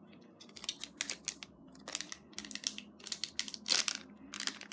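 Handling noise of the slime kit by hand: an irregular run of crackles and sharp clicks.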